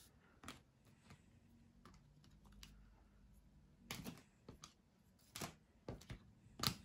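Faint, irregular clicks and taps of stiff chrome trading cards being handled and slid one behind another while a pack is flipped through.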